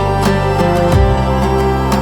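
AI-generated instrumental music in an ancient Middle Eastern devotional style: plucked string notes, oud-like, over sustained low held tones. The bass note changes about a second in.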